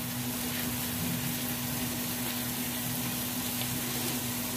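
Onion, tomato and chilli masala with ground spices sizzling steadily as it fries in oil in an aluminium kadai.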